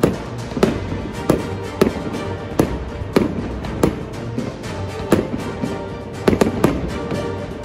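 Fireworks going off in a display, sharp bangs about every two-thirds of a second, mixed with background music that holds sustained tones.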